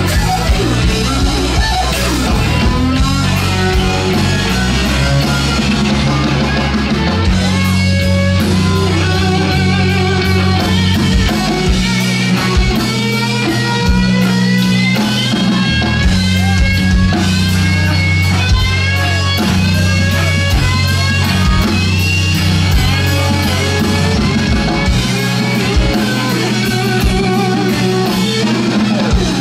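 Live electric blues-rock band playing a slow blues: a Stratocaster-style electric guitar leads with many quick string bends over bass guitar and a drum kit, with no singing.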